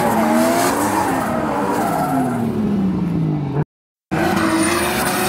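Drift car engine held at high revs, its pitch sliding up and down and then falling steadily, over the hiss of tyres skidding and spinning in a drift. The sound cuts out completely for about half a second near the end, then the engine is heard again.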